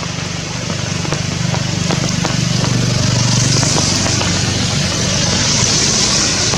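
Steady rain with individual drops ticking, over a low, steady engine hum. The hiss of the rain swells about three seconds in.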